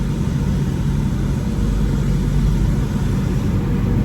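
Steady low rumble with a hiss over it, heard from inside a car's cabin at an automatic car wash.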